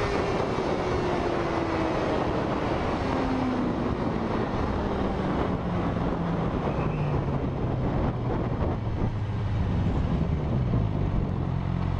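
Sport motorcycle engine heard from the rider's seat, its note falling slowly as the bike slows, then settling to a low steady note near the end. Wind rushes over the microphone throughout.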